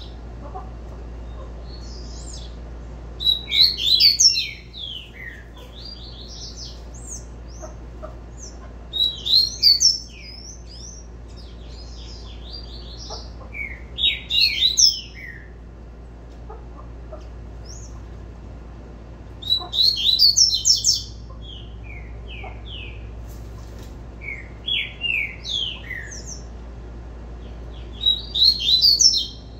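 A male double-collared seedeater (coleiro) sings its tui-tui song in six short, high-pitched phrases of quick twittering notes, one about every five seconds.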